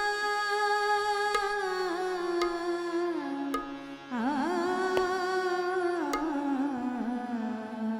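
A woman singing slow, long-held notes of an Indian devotional melody, with wavering ornaments between the notes. A few sparse drum strokes from the tabla and pakhawaj accompaniment fall between them.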